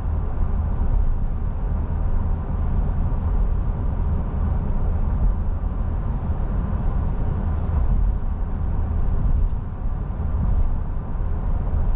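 Steady low rumble of a car driving at highway speed, tyre and road noise heard from inside the cabin.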